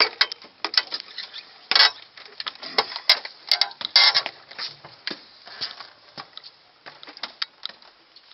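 Footsteps and handling knocks as someone walks in, heard as a string of irregular sharp clicks and knocks that are busiest in the first half and thin out later.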